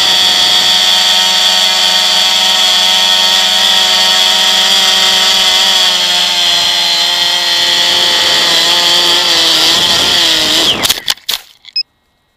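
Multirotor drone's electric motors and propellers whining steadily, heard from a camera on the drone's own frame. About ten seconds in the pitch falls as the motors slow, a few knocks follow as it comes down into the grass, and the sound cuts off.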